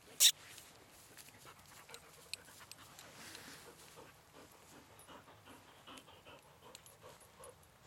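A dog panting close to the microphone, after a single loud click about a third of a second in.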